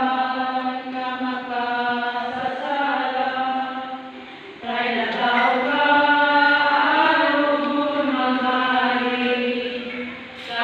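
Voices singing a slow chant together in unison, in long held notes, with a short break about four seconds in before the next phrase.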